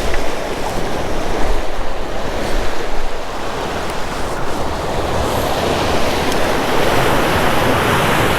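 Ocean surf washing against the shore, a steady rush that swells louder in the second half, with wind rumbling on the microphone.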